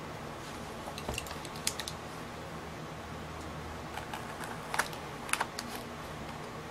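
Clear plastic wrapping being picked at and sliced off a small box with a hobby knife: scattered sharp ticks and crackles of film and blade, a few about a second in and a denser cluster near the end.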